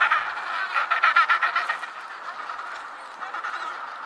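Penguin calling in a series of rapid, pulsed honks, loudest in the first two seconds, then dropping to fainter calls.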